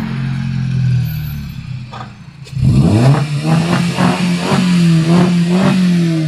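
Exhaust of a VW Golf Mk5 1.6 four-cylinder petrol engine with the rear muffler removed. It runs at a steady note, drops away about two seconds in, then revs up sharply and holds a higher note with a rasping pulse about three times a second.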